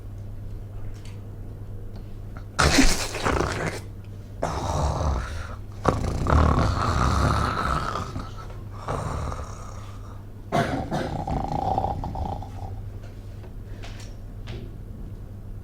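A sleeping person snoring loudly in about five long snores, one after another with short breaks between them; the last snore carries a whistling tone, and the snoring dies away about thirteen seconds in. This is the snoring of a patient with obstructive sleep apnoea.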